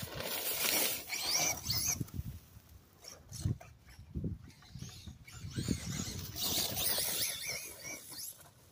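Traxxas Slash 2WD electric RC truck driving past twice, with a high whine from its motor and gears rising and falling as the throttle changes, and its tyres spraying dirt. Low thumps come in between the two passes.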